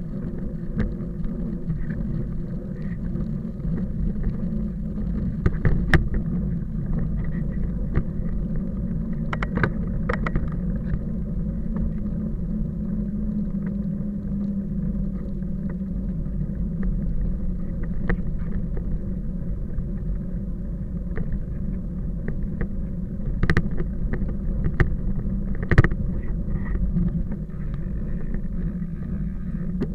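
A vehicle's steady low running rumble, with a few sharp knocks or clatters scattered through it.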